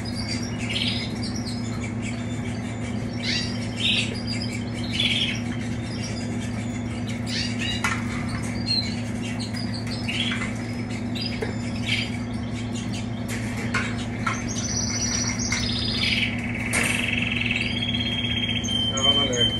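Caged canaries chirping and calling over a steady low hum, with a few clicks. Past the middle, one canary breaks into a long, sustained warbling song.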